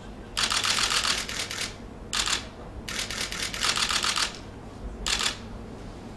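Rapid, dense clicking in several short runs of a second or less, with brief gaps between them, like keys being struck in quick succession.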